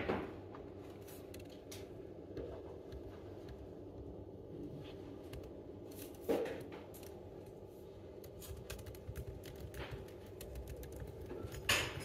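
Typing on a MacBook laptop keyboard: light, irregular key clicks over a faint steady hum, with three louder knocks at the start, about halfway through and near the end.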